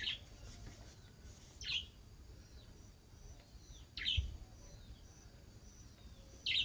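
Bird chirping: four short, sharp calls spaced about two seconds apart, each a quick falling note.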